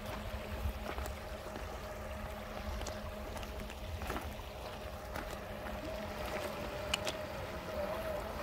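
A small electric motor of a radio-controlled vehicle whining at a steady pitch, with a low rumble underneath and scattered sharp clicks.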